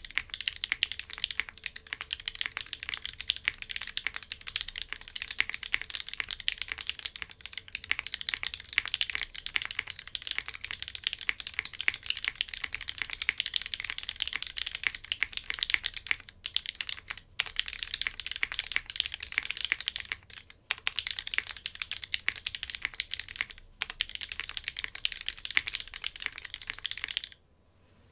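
Fast, continuous typing on a mechanical keyboard with lubed vintage Cherry MX Black linear switches, top-mounted on a polypropylene plate under GMK Burgundy keycaps: a steady stream of key clacks with a few short pauses. It stops about a second before the end.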